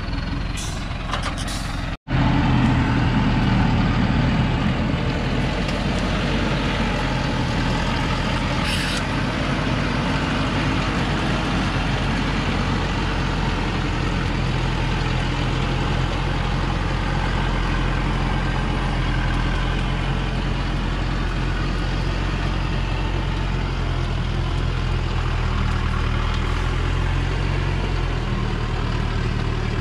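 Diesel engine of a heavily loaded Thaco Forland truck running steadily under load as the truck works its way forward out of sandy mud, with one short hiss about nine seconds in.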